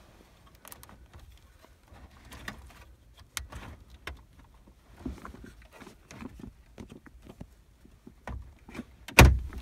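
Plastic and metal clicks, knocks and scraping as a double-DIN car stereo in its dash-kit side brackets is worked into the dash opening. A loud knock with a thud comes about nine seconds in as it is pushed home.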